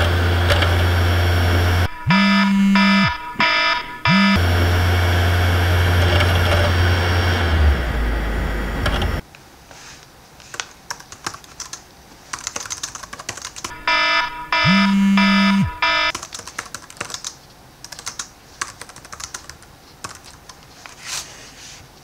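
A loud, steady low hum that cuts off abruptly about nine seconds in, broken early on by short electronic buzzer beeps. After that a quieter stretch of rapid, irregular clicking like typing, with one more buzzer beep about halfway through.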